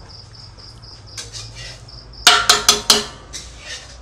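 A metal ladle clinks against a metal pot four times in quick succession a little past halfway, each strike ringing briefly, after a few lighter clatters. Crickets chirp steadily in the background with a fast, high pulsing trill.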